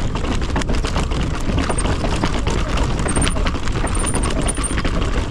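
Mountain bike descending a rough, narrow trail: a steady roar of wind buffeting the camera's microphone under many small knocks and clatters as the tyres and frame rattle over bumps and stones.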